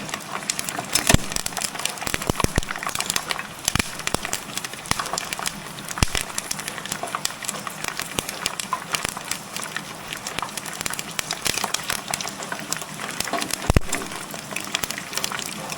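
Pork skin deep-frying in hot oil: a steady sizzle thick with many sharp crackles and pops.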